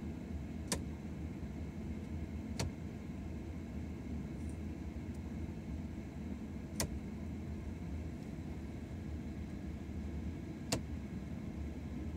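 A car idling with a steady low hum, broken by four sharp clicks at uneven intervals. The clicks come from the Morimoto Elite H7 HID headlight's ignitor striking as the bulb misfires.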